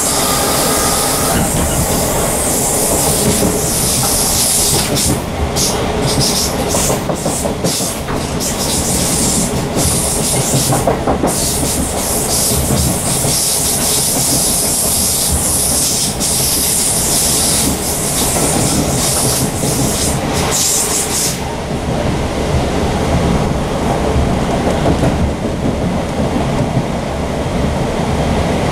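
Southern Class 455 electric multiple unit running at speed, heard from inside the passenger saloon: a steady rumble of wheels on the rails with a loud high hiss that drops away suddenly about three-quarters of the way through.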